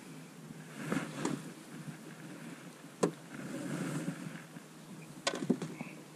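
A few sharp knocks and clicks, with a quick cluster of them near the end, over a low rustling noise: handling noise aboard a small fishing boat.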